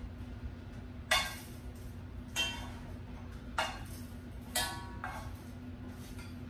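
Metal cooking utensils clinking against a cast-iron skillet: four sharp, ringing clinks about a second apart, over a faint steady hum.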